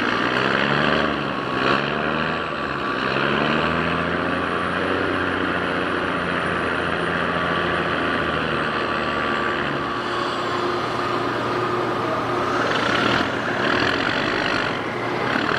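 Cargo barge's diesel engine running under throttle, its pitch climbing and dipping over the first few seconds and then holding steady, with a steady high whine above the rumble.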